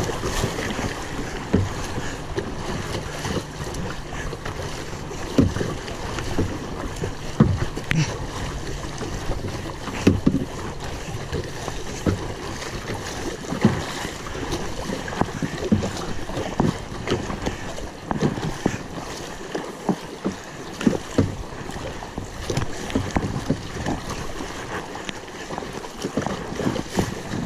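Rough river water rushing steadily around a kayak, with kayak paddle strokes splashing irregularly every second or two.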